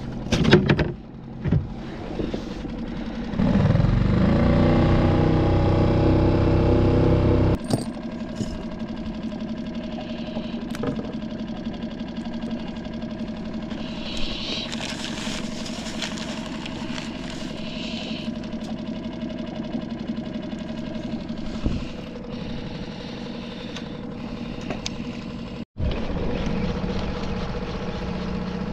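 Small boat's outboard motor running: a few seconds in it revs up, its pitch rising, then about four seconds later it drops back to a steady idle.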